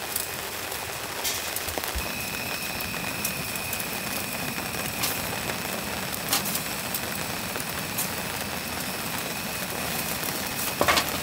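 Steady rain on a cotton tent mixed with the hiss of a gas camping stove burner, with a few light knocks as potato pieces drop into a pot of water on the stove.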